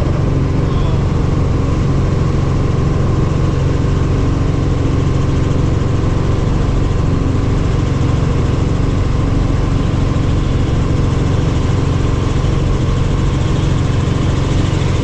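Helicopter engine and rotor running steadily, a loud, even drone with a strong low hum.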